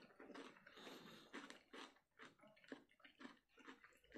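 Faint wet eating sounds from eating fish curry and rice by hand: soft squishing and smacking, several small clicks a second.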